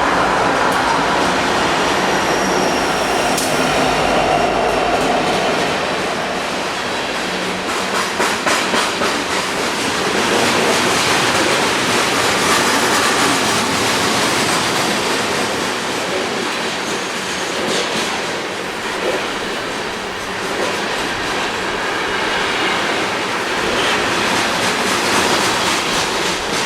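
BNSF freight train's cars rolling past, their steel wheels clattering rhythmically over the rail joints.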